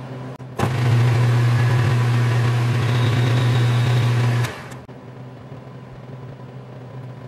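Metal lathe running under power with a strong steady hum while taking a light turning pass on aluminum soft jaws; it comes in suddenly about half a second in and stops about four and a half seconds in, leaving a faint steady background.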